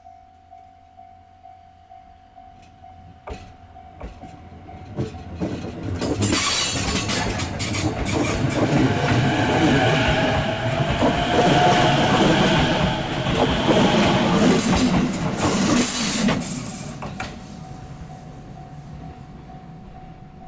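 Railroad crossing bell ringing at about two strikes a second. About six seconds in, an electric train on the JR Ome Line passes over the crossing with loud wheel rumble, clatter and high-pitched flange squeal for about ten seconds. The train then fades, leaving the crossing bell ringing on.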